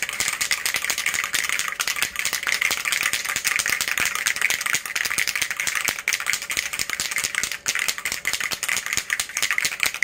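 A spray can of hydro-dipping activator being shaken hard, the mixing ball inside rattling fast and without a break.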